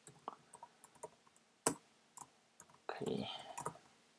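Computer keyboard keys clicking in a short, irregular run of typing, with one sharper, louder keystroke a little before halfway.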